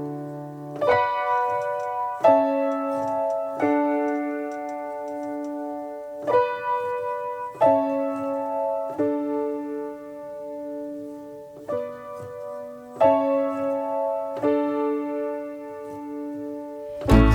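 Background music: slow, sustained piano chords, a new chord struck about every second and a half.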